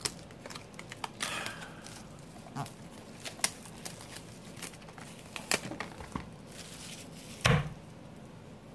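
Cellophane shrink wrap being torn and peeled off a cardboard trading-card prerelease box, crinkling with scattered clicks and taps. A heavier knock comes about seven and a half seconds in.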